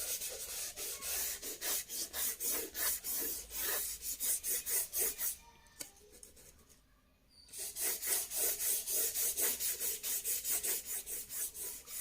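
Folded paper dipped in graphite powder rubbed back and forth on drawing paper to shade the background: quick scratchy strokes, about three a second, stopping for a couple of seconds around the middle, then resuming.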